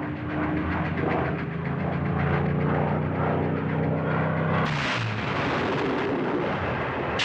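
Propeller aircraft engines droning steadily, then about two-thirds of the way in a sudden cut to a broad rushing noise.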